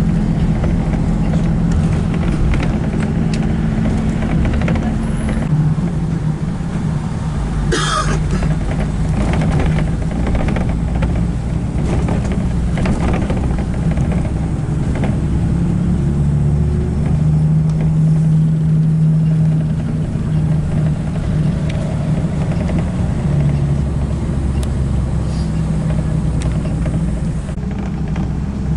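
A car driving, with a steady low drone of engine and road noise, and a short sharp noise about eight seconds in.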